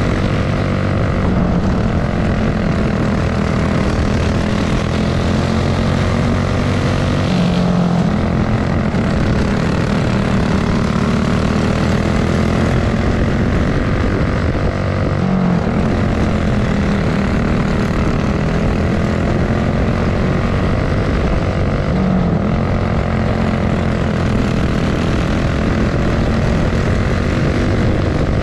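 Racing kart engine running hard at close range, its buzzing note sagging and climbing again about every six or seven seconds as it lifts and accelerates.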